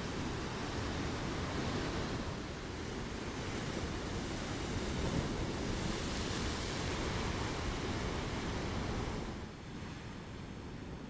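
Heavy ocean surf breaking and washing over a rocky shore: a continuous rushing wash that swells and ebbs. It drops a little in level about nine seconds in.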